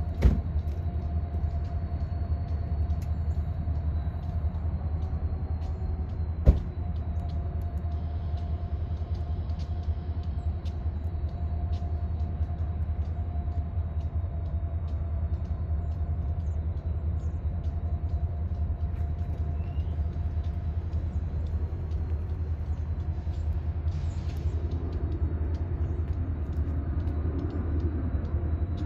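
Diesel yard locomotives running with a steady low rumble and a faint steady tone above it. Two sharp knocks stand out, one right at the start and one about six and a half seconds in.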